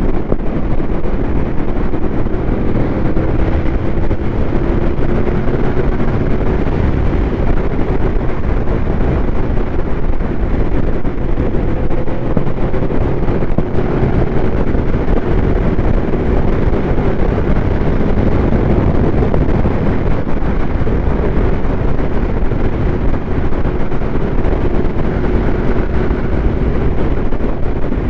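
Aprilia Tuono V4 motorcycle engine with an SC Project slip-on exhaust, running under steady throttle at speed, its pitch creeping slowly upward and then holding. Heavy wind rush on the microphone covers much of it.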